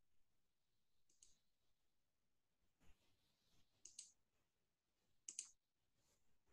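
Near silence, broken by three faint, quick double clicks about a second, four and five seconds in: a computer mouse button being clicked.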